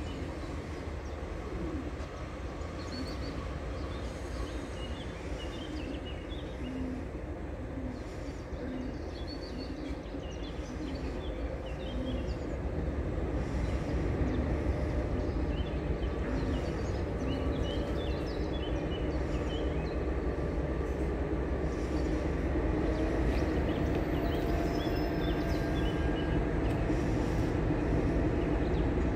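Heavy diesel locomotive approaching slowly with a freight train, its engine running steadily and growing louder over the second half. Birds chirp now and then.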